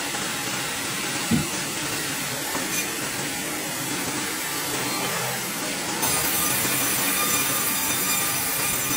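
Band sawmill blade cutting lengthwise through a pine log with a steady rushing saw noise. A brief knock comes about a second and a half in, and the sawing grows louder about six seconds in.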